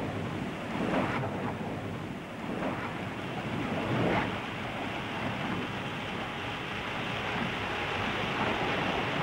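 Steady rushing jet and airflow noise of a jet fighter in a high-speed dive, swelling briefly about one second and again about four seconds in.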